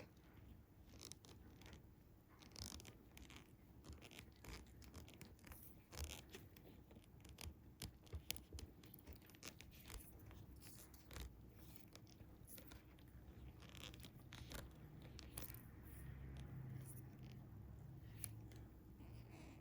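Faint scratching, rustling and small irregular clicks of fishing line and hooks being handled up close while a snell is tied.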